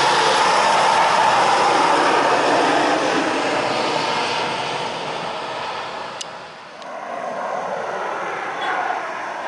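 Lockheed C-130 Hercules passing low overhead, its four turboprop engines a loud, steady drone that fades over the next few seconds. After a short lull, another aircraft's engine noise swells again near the end.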